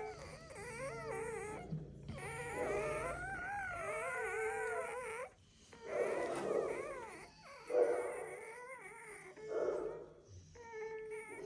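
Dogs whining and whimpering in drawn-out, wavering high cries broken by short pauses.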